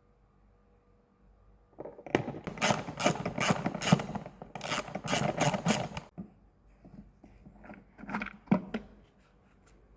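Ratchet wrench clicking through repeated back-and-forth strokes, about two to three a second, working a fastener on a motorcycle during air filter access, then a few separate clicks near the end.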